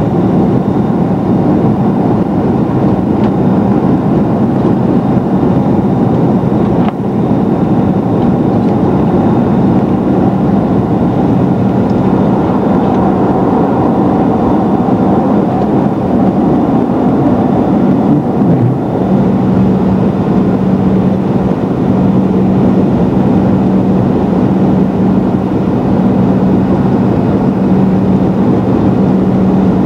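Cabin noise aboard a McDonnell Douglas DC-9-30 climbing out after takeoff: its rear-mounted Pratt & Whitney JT8D turbofans running, with loud rushing airflow. A steady low hum runs under the noise, wavers briefly about two-thirds of the way through, then settles on an even pitch.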